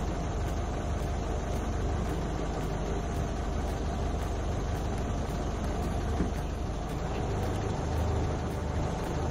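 Safari jeep's engine idling steadily, a low, even running sound with no change in pitch.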